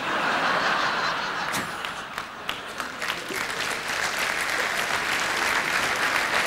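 Theatre audience applauding, a dense clatter of many hands clapping that dips briefly about two seconds in and then swells again.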